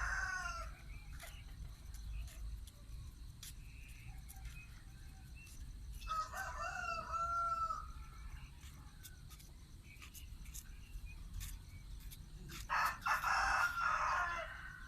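A rooster crowing: one crow trailing off at the start, another about six seconds in, and a louder one near the end.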